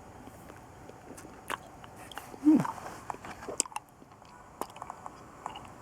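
Mouth sounds of someone sucking and licking a hard handmade lollipop: scattered wet smacks and clicks, with a brief falling hum about two and a half seconds in.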